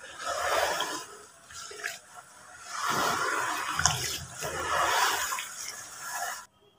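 Hands churning gritty wet sand-cement in a bucket of water: sloshing, swishing water with sand grinding through it, in several surges, cutting off suddenly near the end.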